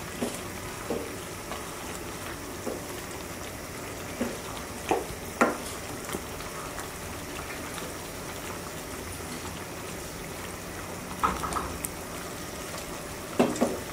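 Wooden spatula stirring chicken pieces through a simmering yogurt curry in a pan: a steady bubbling sizzle under short wet scrapes of the spatula, the loudest strokes about five seconds in and again near the end.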